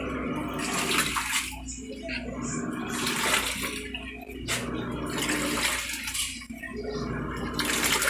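Panasonic top-load automatic washing machine agitating a full load: water and laundry sloshing in surges that come and go every second or two. The tub rides on newly replaced suspension springs, so the motor underneath no longer scrapes the floor.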